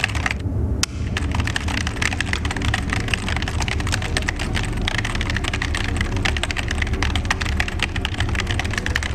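Rapid clattering computer keyboard typing, many quick key clicks with a brief pause early in the first second, over a steady low hum.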